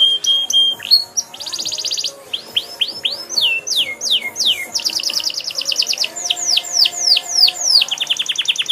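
Domestic canary singing a long, varied song: a short held note, fast rattling trills, and runs of rising and falling sweeping whistles, phrase after phrase without a break.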